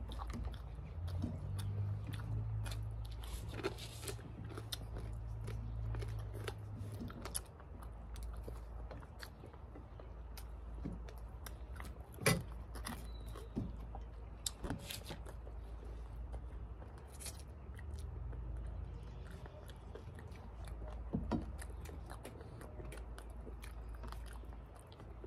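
Close-up chewing and eating sounds, with scattered sharp clicks and a low hum that comes and goes.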